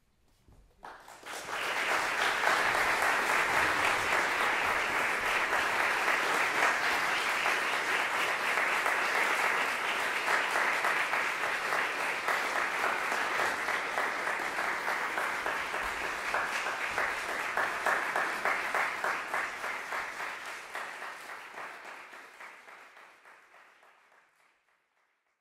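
Audience applauding, starting about a second in, holding steady, then dying away over the last few seconds.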